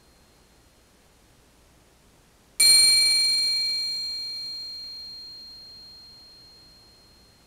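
Triangle struck once about two and a half seconds in, ringing with a bright, high, shimmering tone that slowly fades over several seconds. Before the strike, the faint ring of an earlier stroke is still dying away.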